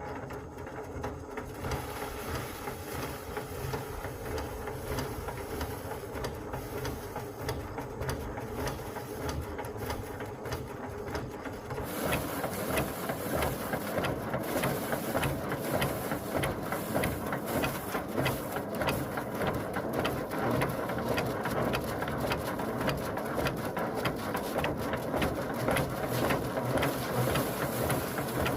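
A small machine running steadily with a rapid rattling texture. It grows louder and busier about twelve seconds in.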